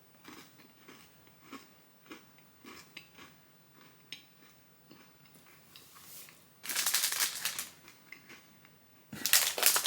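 Soft crunching chews of a cookie, then loud crinkling of a plastic snack package in two spells, the first about six and a half seconds in, the second near the end.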